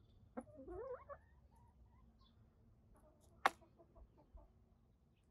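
Hens clucking softly while feeding: a wavering call that rises and falls about half a second in, then a few short faint clucks. About three and a half seconds in comes one sharp click, a beak pecking at the pizza, the loudest sound.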